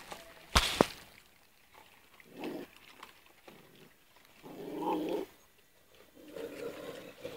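Stray puppies making three short low vocal sounds, a dog's grumbles while being fed, with two sharp knocks a little over half a second in.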